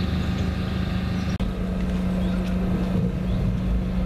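A vehicle engine running steadily, a constant even hum at one unchanging pitch.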